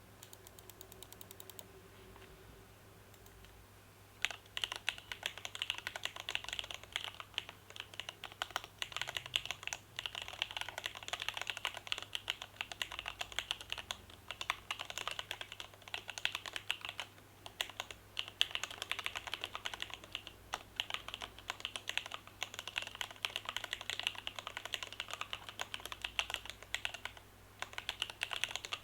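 Typing on a Borderland ergonomic mechanical keyboard with stock TTC Wild switches in a stacked-plate build: a dense, fast stream of keystrokes that starts about four seconds in, with a few short pauses.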